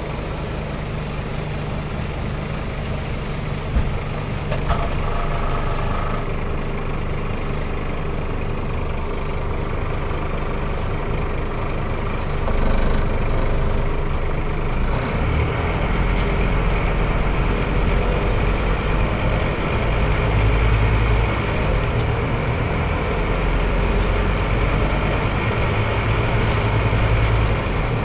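Interior ride noise of a Scania CN270UB city bus: steady engine and road rumble with light cabin rattles. The rumble grows louder and deeper about halfway through.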